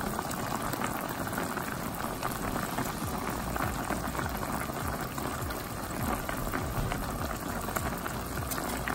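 Chicken, tomatoes and yogurt liquid boiling hard in a wide pan, a steady bubbling with many small pops.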